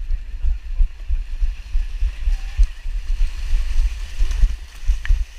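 Many runners splashing as they run and wade into shallow lake water, over heavy, irregular low thumps of wind and jolting on the running camera.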